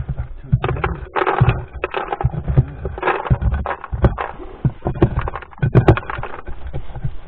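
Irregular thumps and rustling of someone moving about and handling things in a shed, with a few sharper knocks.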